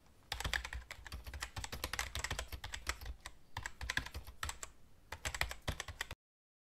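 Computer keyboard typing: a quick, uneven run of key clicks that cuts off suddenly about six seconds in.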